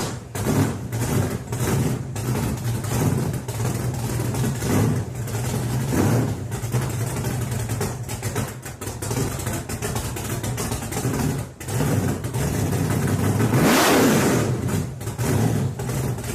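A large American muscle car engine running loud, idling with a lumpy, pulsing note and blipped several times, with a bigger rev that rises and falls about three quarters of the way through.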